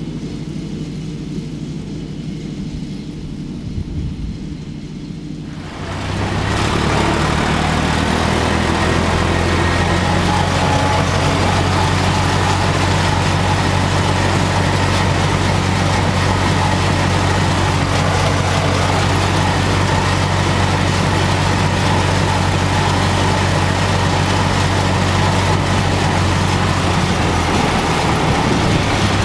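John Deere 1030's three-cylinder diesel working steadily with a PZ-Zweegers mower in the grass. For about six seconds it is fainter and distant. It then becomes suddenly much louder and fuller, with a hiss of cutting noise above the engine, heard from inside the tractor's cab.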